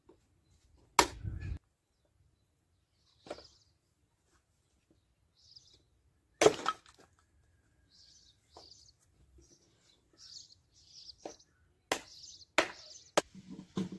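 Axe chopping firewood on a wooden block: sharp cracks of wood being split, struck at irregular intervals with the loudest blow about halfway through and a quick run of strokes near the end. Small birds chirp in short bursts through the second half.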